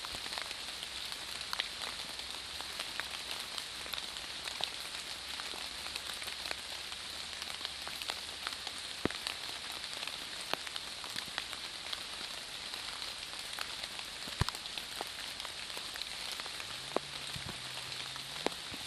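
Water drops falling on leaf litter in a foggy forest: scattered, irregular ticks over a steady hiss. A faint low hum comes in briefly near the end.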